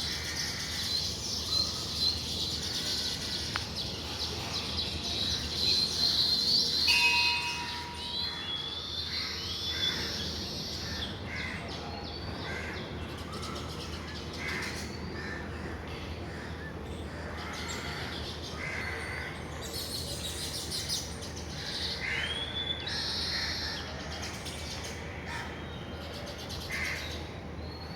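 A colony of baya weaver birds chirping and chattering at their nests. The chorus is dense for about the first seven seconds, then thins to scattered single calls, some of them dropping in pitch.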